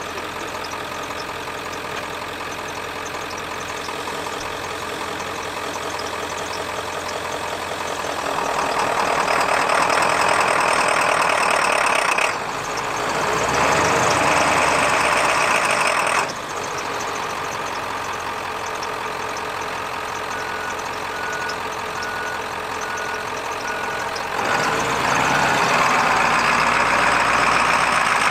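1995 Ford F-350 tow truck's 7.3-litre Power Stroke V8 turbo diesel running. It grows louder about eight seconds in and stays up, with short dips, until roughly halfway, settles back to a lower steady note, then picks up again near the end.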